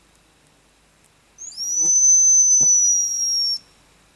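Hazel grouse caller blown in one long, high, thin whistle lasting about two seconds, with a short lead-in note. It imitates a hazel grouse to draw the birds back in.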